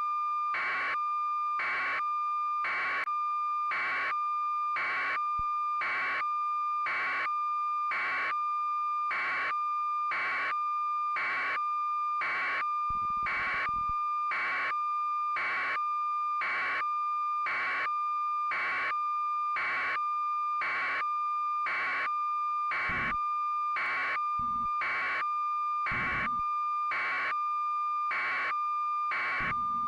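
A steady electronic tone with regular beeping pulses over it, about one and a half beeps a second, with a few faint low rumbles now and then.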